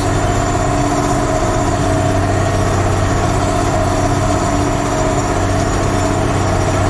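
Ford TW15 tractor's six-cylinder diesel engine running at a steady pitch under load while pulling a field cultivator.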